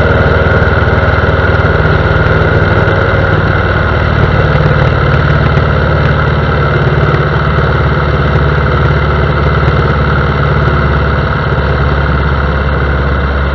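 Piper J-3 Cub's engine and propeller running steadily, a loud even drone, with a slight change in its low tone about four and a half seconds in.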